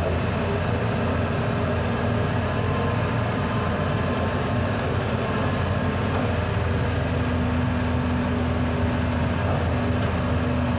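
Hitachi ZX210 hydraulic excavator's diesel engine running steadily under load as the machine works its arm and bucket. A steady higher tone joins the drone about seven seconds in.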